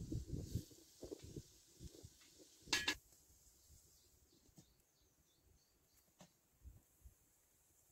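A metal cooking pot and utensils being handled, with a few low knocks and one sharp metallic clank just under three seconds in. After that it goes quiet, with faint bird chirps.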